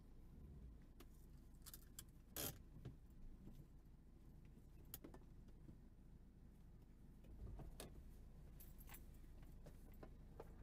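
Jeep Grand Cherokee ZJ's engine idling with a low, steady hum, heard from inside the cab, with a few light clicks and jangles of loose items rattling in the cab. The loudest jangle comes about two and a half seconds in.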